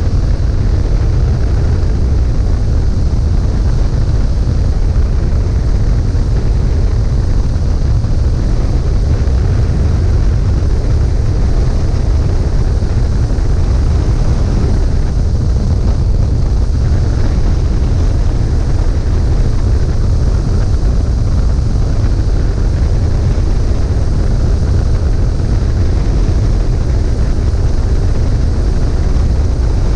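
Steady low rumble of an aircraft in flight, heard from on board, unchanging throughout.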